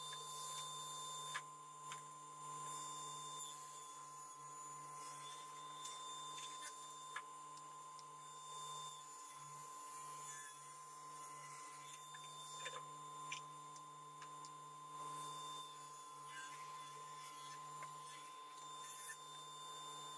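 Faint, steady electrical hum made of several held tones, with a few light clicks scattered through it.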